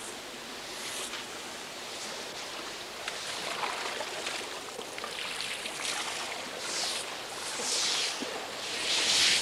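Water splashing as it is scooped from a river in a basket and poured over an elephant's hide, about five splashes over the steady wash of the water.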